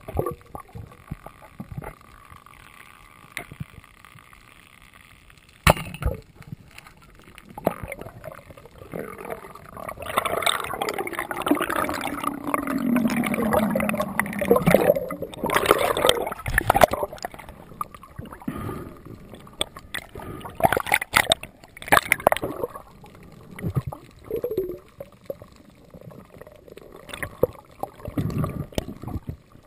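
Underwater water noise heard through a GoPro housing as a freediver swims along a reef: gurgling and sloshing with scattered clicks and knocks, rising to a louder rushing stretch in the middle, in which a low tone slides down.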